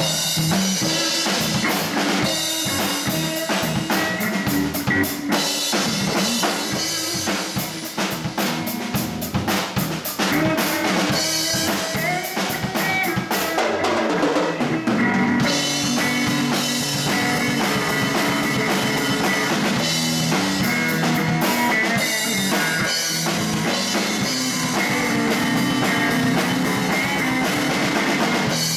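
Live blues band playing an instrumental passage: drum kit with bass drum and snare hits to the fore, under electric bass and electric guitar.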